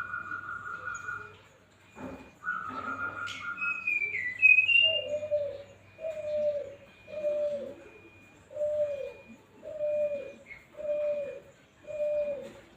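Young brown-chested jungle flycatcher (sikatan rimba dada coklat) singing: two long steady whistles, a few higher gliding notes, then a run of seven short, low, falling notes about a second apart. A faint high pip repeats underneath, with a single click about two seconds in.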